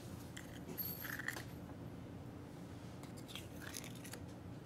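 Faint scrapes and clicks of a spoon working leftover clear glue out of its container into a bowl, over a low steady room hum.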